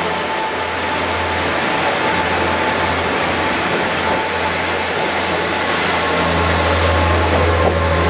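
KiHa 47 diesel railcars moving along a station platform: a steady loud diesel engine rumble with running noise, the low rumble growing stronger from about six seconds in.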